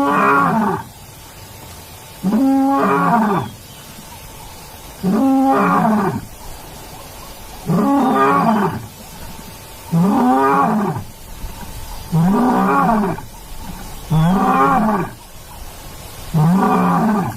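Lion's roar broadcast to imitate an intruding male: eight long calls about two seconds apart, each rising and then falling in pitch.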